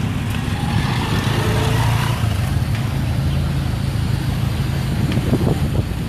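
A vehicle engine idling close by with a steady low hum, under the wash of street traffic.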